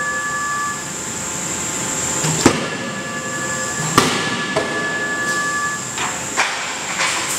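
Forging-line machinery running with a steady hiss. There are sharp metal clanks about two and a half and four seconds in, each followed by a metallic ringing tone lasting about a second, then lighter knocks near the end.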